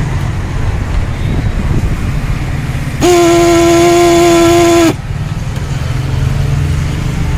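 Stebel six-pipe musical air horn sounding one steady note for about two seconds, starting and stopping abruptly about three seconds in. The button is let go before the tune can play through, the mistake that leaves the horn picking up halfway through its tune on the next press. A low steady rumble runs underneath.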